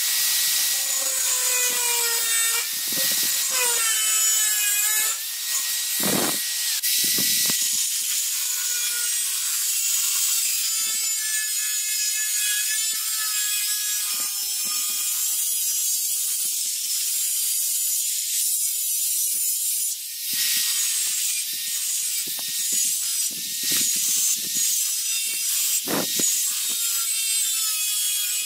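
Angle grinder with an abrasive cutting disc cutting through a steel knife blank. It gives a continuous loud hiss, and the motor's whine falls and rises in pitch as the load on the disc changes. There are a couple of brief knocks partway through.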